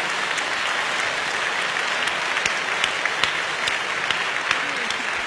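Studio audience applauding, a steady dense patter of many hands clapping with a few sharper claps standing out.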